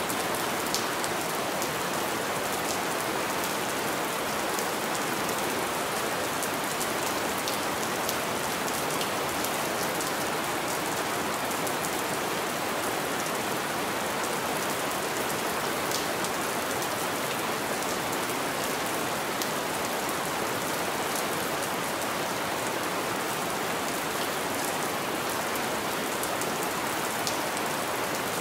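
Steady rain falling on a window: an even hiss with scattered sharper taps of individual drops.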